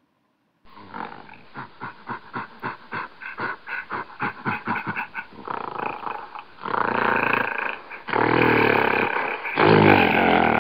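Recorded gorilla calls: a quickening run of short sounds, about four or five a second, then three long, loud roars.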